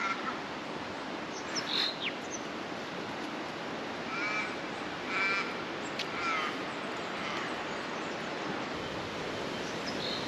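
A bird calling outdoors: three short calls about a second apart around the middle, with a brief high chirp about two seconds in, over steady outdoor background noise.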